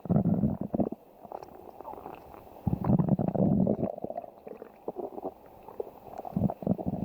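A person's stomach growling: irregular gurgling rumbles in bursts, a loud one right at the start, a longer one about three seconds in, then shorter gurgles toward the end.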